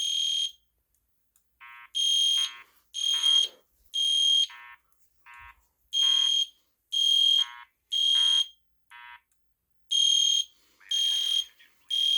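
EST Genesis horn strobe sounding a loud, high-pitched horn in the temporal-three (code 3) pattern: three short blasts about a second apart, then a pause, repeating. In between the blasts comes a quieter, lower, buzzy alert tone from the Genesis speaker strobe, in its own groups of three.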